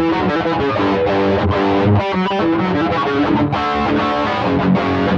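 Electric guitar played through an Xvive T1 Golden Brownie overdrive pedal, its drive set at about two o'clock for a moderately distorted tone, playing a run of chords and riffs.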